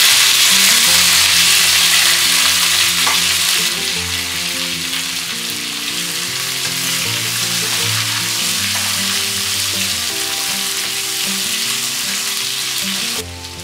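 Raw sweet potato slices dropped into hot tempering oil in a nonstick kadai, frying with a loud sizzle that starts all at once as they go in, while a wooden spatula stirs them. The sizzle is strongest for the first few seconds, then settles a little, and stops abruptly near the end.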